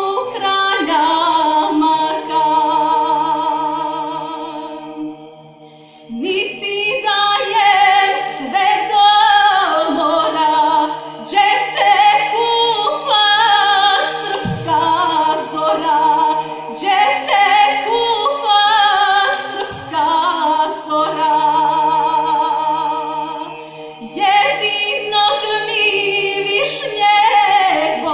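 A woman singing with vibrato, backed by a mixed choir, unaccompanied, over a steady low held note. The singing fades away about five seconds in and starts again a second later.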